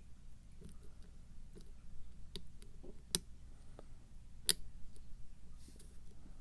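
Pick and tension wrench working the pin tumblers of a challenge lock: scattered small metallic clicks as pins are lifted and set, the sharpest about three and four and a half seconds in.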